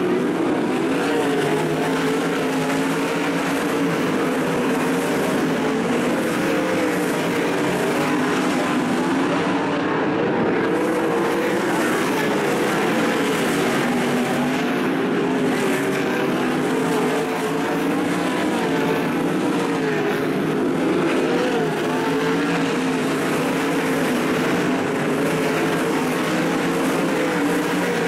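Several 410 sprint cars' V8 engines running flat out in a race, a steady loud engine din whose pitch keeps wavering up and down as the cars go through the turns and down the straights.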